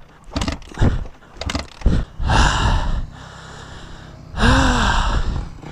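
A man breathing hard, out of breath from exertion: several quick breaths, then two long, loud gasping breaths about two seconds apart.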